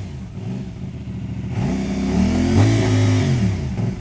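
An engine being revved: its pitch drops, then climbs to a peak about two and a half seconds in and falls away again.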